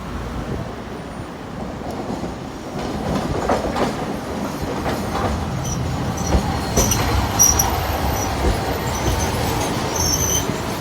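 A vehicle running with a steady low rumble, with short high squeals and a few knocks.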